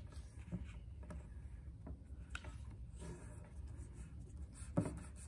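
Soft rustling and rubbing of origami paper being folded and creased by hand against a wooden tabletop, in scattered faint touches, with one brief louder sound near the end.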